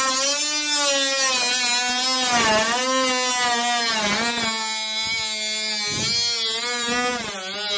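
Small cut-off wheel whining as it cuts through a car's steel quarter panel and body filler, with a hiss from the cut. Its pitch sags and recovers again and again as the wheel bites into the metal and eases off.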